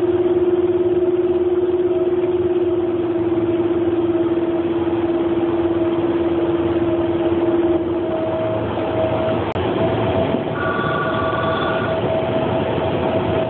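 Running noise inside a moving train carriage, with a steady electric hum that fades away about eight seconds in. A brief high electronic tone sounds around eleven seconds.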